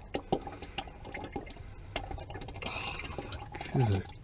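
Algae-contaminated hydraulic fluid from a John Deere 5520 tractor pouring out of a drain plug into a plastic bucket: a steady splashing trickle with scattered drips and plops as clumps of algae come through. A brief low falling sound near the end is the loudest moment.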